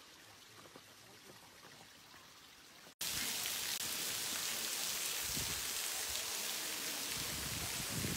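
Faint outdoor quiet at first, then about three seconds in a loud, steady hiss of rushing water begins abruptly, with some low rumbling later on.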